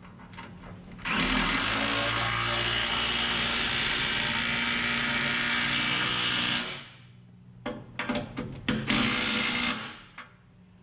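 Impact wrench running on the bolts that hold a feed mixer's auger blades: one long burst of about five seconds, a few short bursts, then a final burst of about a second.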